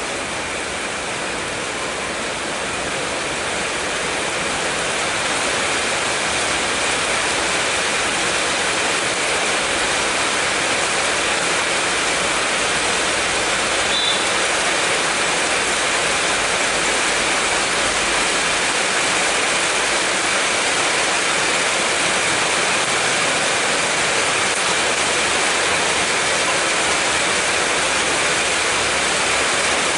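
Rain falling steadily: a dense, even hiss that grows slightly louder over the first few seconds.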